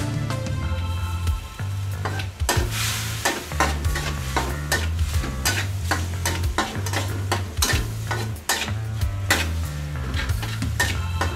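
Pork pieces sizzling in hot oil in a steel wok, with a metal spatula scraping and knocking against the wok as the meat is stirred. The scraping starts about two seconds in and repeats quickly.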